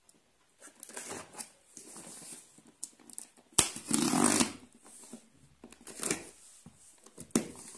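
A cardboard shipping box being opened by hand, a pen scraping along and slitting its packing tape, with rustling and tearing of tape and cardboard in short bursts. The loudest is a sharp snap about three and a half seconds in, followed by about a second of louder tearing.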